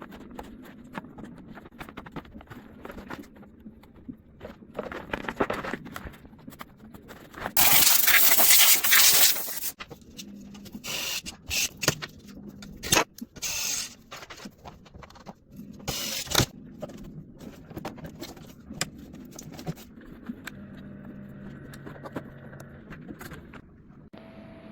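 Hands working on a desktop PC's parts: a string of clicks, knocks and scrapes of small plastic and metal pieces, with a loud hiss lasting about two seconds near the middle.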